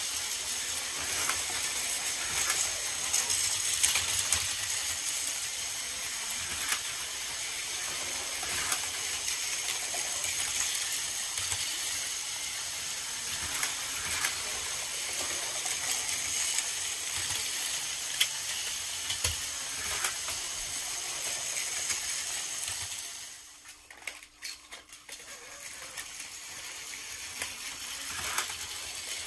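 Battery-powered Plarail toy trains running on plastic track: a steady whirring rattle of small motors and wheels, with scattered clicks and clatter. Near the end it drops away for a couple of seconds, then starts again.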